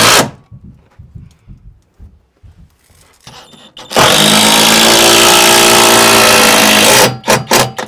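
Power drill driving a lag screw into wood: a run that stops just after the start, a steady run of about three seconds from about four seconds in, then a few short bursts near the end. Quieter knocks between the runs.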